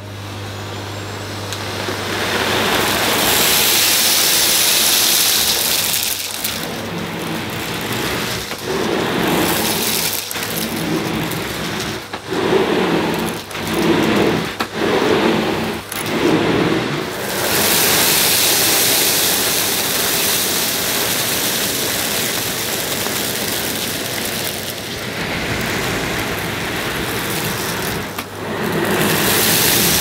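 AEG VX8 Silence bagged cylinder vacuum cleaner running on maximum suction while its floor nozzle is pushed back and forth over carpet, the noise swelling and dipping with the strokes through the middle stretch. Spilled rolled oats, rice and tea leaves are heard being sucked up the pipe.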